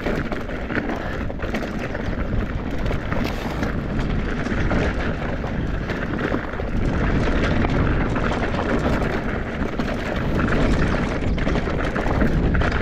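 A mountain bike riding fast down a rocky dirt trail: the tyres roll over dirt and loose rocks and the bike rattles, with many small knocks, over a steady low rumble of wind on the action camera's microphone.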